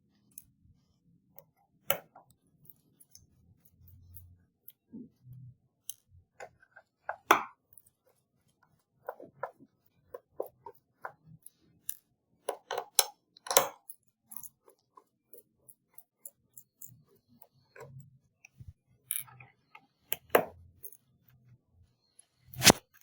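A Phillips screwdriver backs small screws out of a 2012 MacBook Pro's aluminium bottom case, with scattered light clicks and taps of metal on metal and a few louder knocks as the screws and tool are handled and set down.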